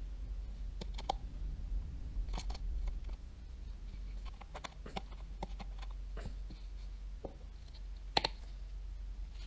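Small parts of a Daiwa Tatula 100 TWS baitcasting reel and the tools on them being handled: scattered light clicks and taps at irregular times, one sharper click about eight seconds in, over a steady low hum.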